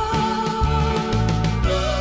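Background music: a melody over a changing bass line.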